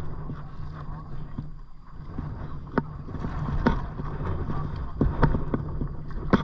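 Kayak being paddled: paddle strokes in the water with a few sharp knocks, over a steady low wind rumble on the microphone.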